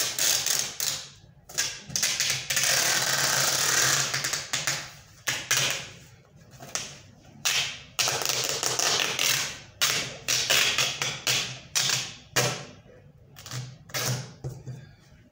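Packing tape pulled off the roll in two long, noisy pulls, with many short rips and tears of tape and taps on a cardboard box as it is sealed.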